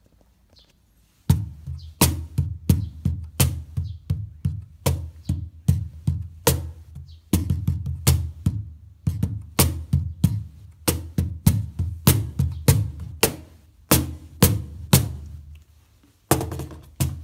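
Regent wooden cajon played with bare hands in a steady rhythmic groove, deep bass strokes mixed with sharper slaps. The playing starts about a second in and stops briefly near the end before a few more strokes.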